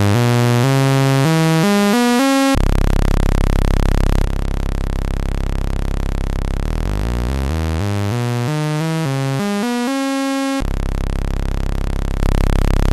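Raw analog synthesizer oscillator from a 4027VCO Eurorack module with a bright, buzzy tone, routed through a CP3- discrete mixer. It sweeps up in pitch, holds a steady note, then sweeps up again about two-thirds of the way through and holds once more, becoming a little louder near the end.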